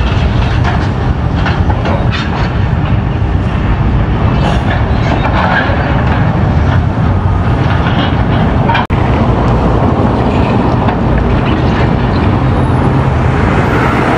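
Steady low rumble of street traffic and heavy demolition machinery, with a few sharp knocks in the first couple of seconds and a brief break about nine seconds in.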